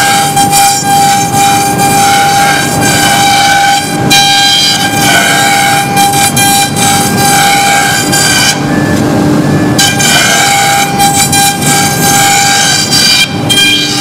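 A CNC router's spindle runs at speed while it carves foam: a steady high whine over a rushing noise. The hiss dips out for about a second just past halfway.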